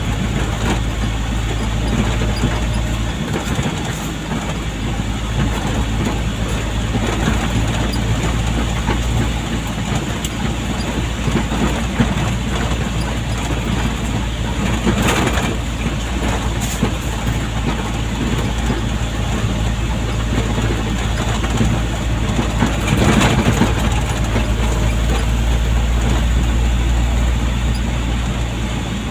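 Vehicle driving on a rough dirt road, heard from inside the cab: steady engine hum and tyre and body rumble, with a few brief knocks and rattles over bumps.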